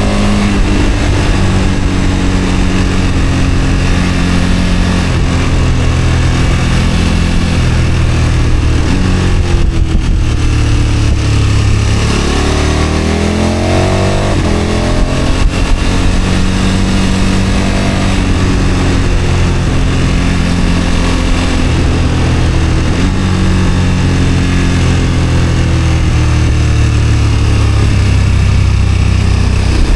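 KTM 1290 Super Adventure S V-twin engine running under way on the move, heard from the rider's seat. The engine note holds steady for long stretches, and its pitch sweeps up and down as the revs change about twelve to fifteen seconds in.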